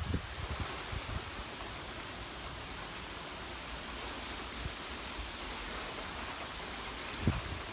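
Steady hiss of thunderstorm rain and wind, with gusts buffeting the microphone at the start and again about seven seconds in.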